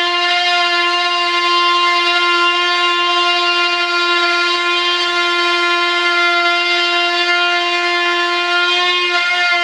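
Oscillating multi-tool running steadily, its blade buzzing at one steady pitch while cutting, with a brief wobble in pitch a little after nine seconds in.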